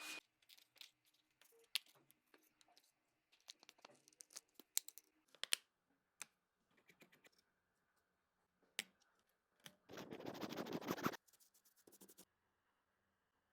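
Scattered small clicks, taps and scratches of tools working on a phone, with a dense scraping rattle lasting about a second and a half near the end.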